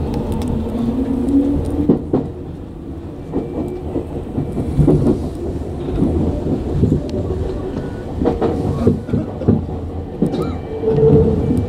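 Tokyu 9000 series electric train running on the Oimachi Line: its wheels knock over rail joints with a low rumble. A motor whine rises in pitch about a second in, and a steady, higher motor whine comes in near the end.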